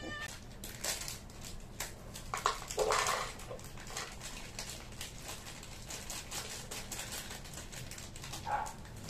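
Handfuls of cat food pieces dropped into a plastic bowl, giving a run of small irregular clicks and rattles. A tabby cat's meow trails off at the very start, and there are short cat calls about three seconds in and again near the end.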